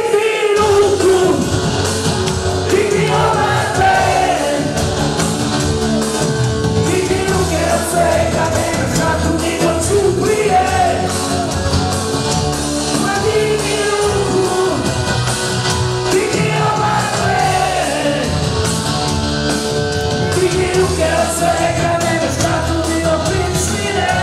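Live wedding band playing loud dance music with a lead singer, an electric guitar among the instruments.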